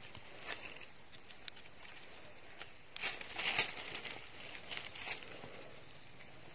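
Dry leaf litter crackling and rustling in short bursts as a hand digs and pushes through it, with a steady high-pitched insect drone underneath.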